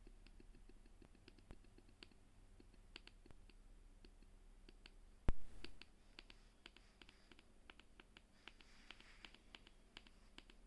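Trackpad of an M1 MacBook Air (2020) being clicked over and over, irregular light clicks, with one much louder knock about five seconds in. The owner presents these clicks as a click sound issue.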